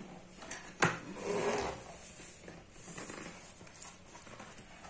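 Cardboard ring light box being handled and its top flap pulled open: a sharp click about a second in, then a short rustle, with a few softer taps after.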